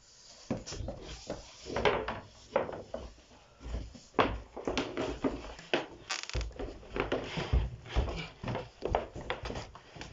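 Irregular knocks, clunks and rustling from things being handled and set down in a small room, a dozen or more separate strokes of varied loudness.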